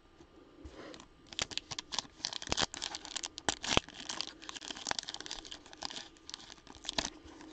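A foil trading-card pack wrapper is being torn open by hand. About a second in, a dense, irregular run of crinkling and tearing crackles starts. The wrapper is slow to tear.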